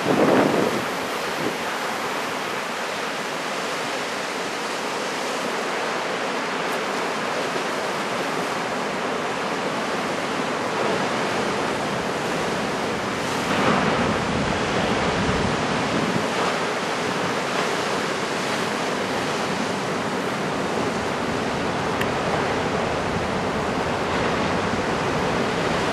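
Steady roar of heavy typhoon surf breaking offshore, mixed with wind buffeting the microphone, with a louder gust about thirteen seconds in.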